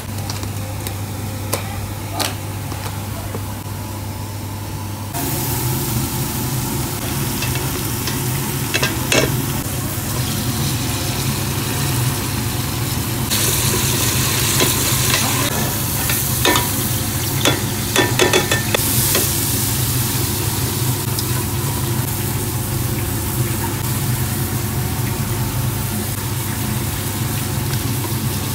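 Onions and tomatoes frying in oil in a steel pot, sizzling from about five seconds in, while a spatula stirs and scrapes against the pot with scattered clicks. A steady low hum runs underneath, and a few sharp knocks come before the frying starts.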